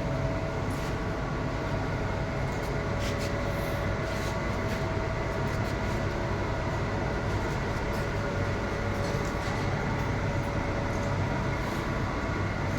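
Steady electric arc welding on a pipe root pass: an even hiss and hum with scattered short crackles.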